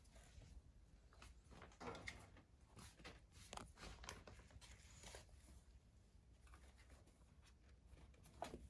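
Near silence: room tone with faint scattered rustles and light clicks.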